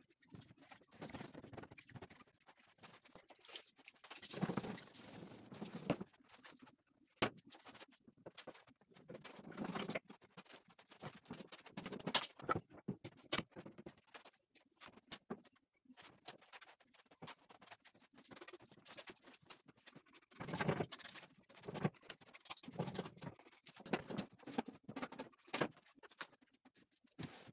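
Irregular hand-work handling noises on a wooden chair: short scrapes and rustles with scattered clicks and taps, the loudest a sharp tap about twelve seconds in.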